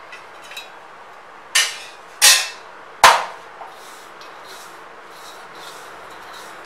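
Three loud, sharp knocks about three-quarters of a second apart, followed by the faint crumbly rustle of a hand kneading ghee-moistened pearl millet flour in a steel bowl.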